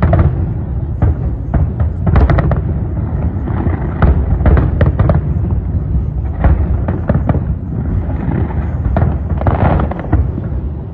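Aerial fireworks shells bursting in quick, irregular succession, with sharp bangs coming in clusters over a continuous low rumble.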